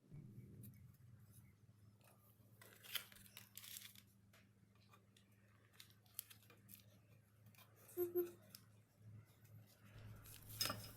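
Faint scattered clicks and scrapes of metal radiator and fan-bracket parts being handled and fitted, with a couple of louder ticks, over a low steady electrical hum.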